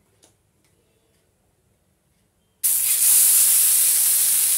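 Pearl millet adai batter poured onto a hot, oiled iron dosa griddle, setting off a sudden loud sizzle a little over halfway through that then holds steady. Before it, near silence with a couple of faint clicks.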